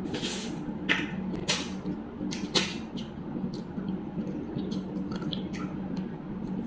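Close-up mouth sounds of someone eating fish head curry with her fingers: wet lip smacks, chewing and sucking at the fish, heard as an irregular string of short smacks and clicks, the loudest about a second and a half and two and a half seconds in.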